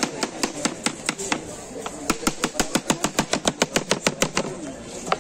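Kitchen knife chopping onion and green chilli on a plastic cutting board: rapid, even knocks of the blade on the board, speeding up into a fast run of about nine strokes a second from about two seconds in, then stopping about a second before the end. Voices murmur in the background.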